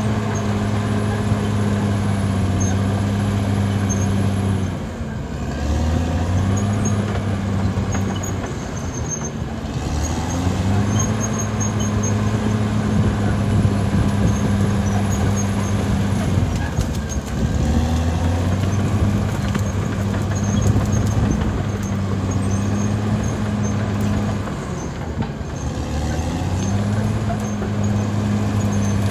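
Caterpillar D6R XL bulldozer's diesel engine running steadily, its pitch dropping and climbing back up about four times.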